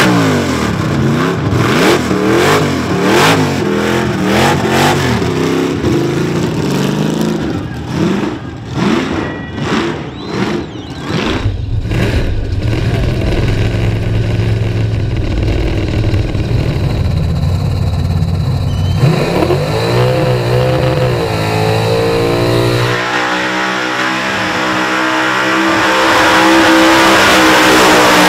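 Supercharged, carburettor-fed small-block Chevrolet V8 in an HQ Holden Monaro revving hard through burnouts, its pitch rising and falling repeatedly. It turns choppy and broken for a few seconds about a third of the way through, then settles into a steadier drone before climbing and falling again.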